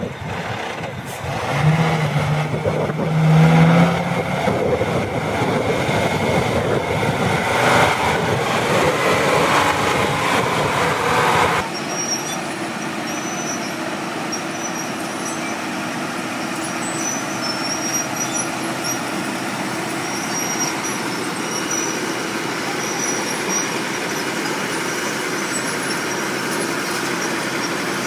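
A heavy dump truck's diesel engine working as the truck drives over rough dirt. It cuts off abruptly to a steady drone of several crawler bulldozer engines running together.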